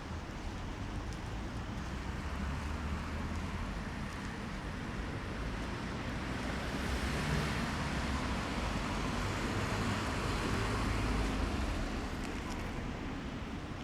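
Traffic on a wet street: a steady low rumble of engines with the hiss of tyres on wet asphalt, swelling as a vehicle passes about halfway through and fading near the end.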